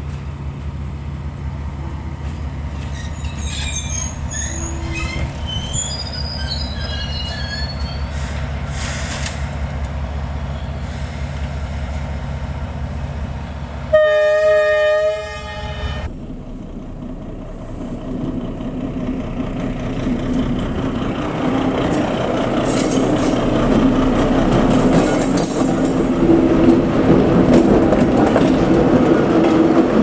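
D19E diesel-electric locomotive's engine running with a steady low drone. About 14 seconds in comes a loud, multi-note air horn blast of just over a second. After it, the rumble of a locomotive and its wheels on the rails grows steadily louder toward the end as a train draws near.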